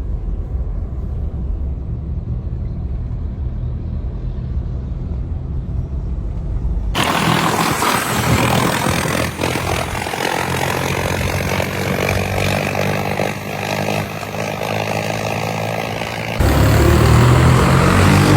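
Tractor engine running, heard in three cut-together stretches. For about the first seven seconds it is a low rumble. The middle stretch is broader and noisier. Near the end it is louder, with a steady low hum.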